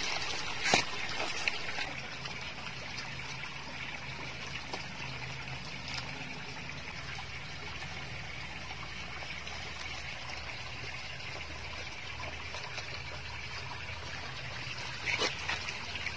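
Puppies suckling at their mother's teats: soft wet sucking and smacking, with a few sharper clicks about a second in and near the end.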